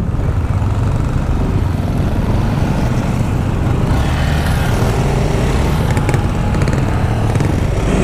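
Yamaha Aerox scooter's single-cylinder engine running steadily on the move, with road and wind noise.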